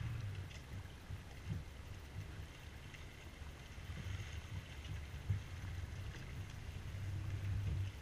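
Wind buffeting the microphone in an uneven low rumble, over a steady hiss of water along the hull of a sailboat under sail.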